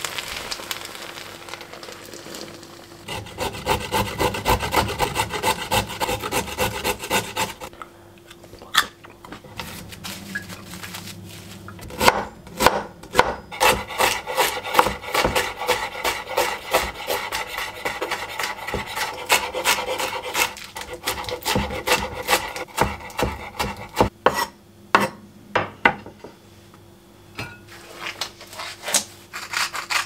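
Chef's knife shredding red cabbage on a wooden cutting board: quick, rhythmic cuts, several a second, each stroke ending in a knock on the board. The cutting comes in two long runs with a pause of a few seconds between them.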